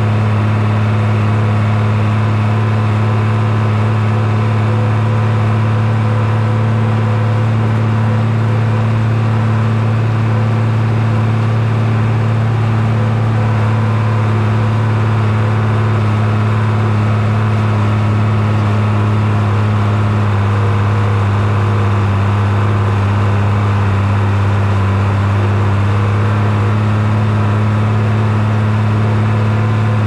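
International 686 tractor engine running steadily at a constant working speed, a loud even drone with no change in pitch.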